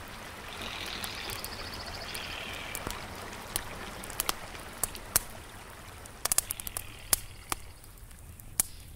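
A fast shallow river rushing over rocks in a steady wash, with the sharp irregular pops and crackles of a small campfire scattered through it, thicker about six to seven seconds in.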